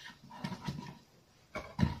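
Kitchen knife slicing through a raw potato, the blade knocking on the cutting board: a few soft cuts about half a second in, then two sharper knocks close together near the end.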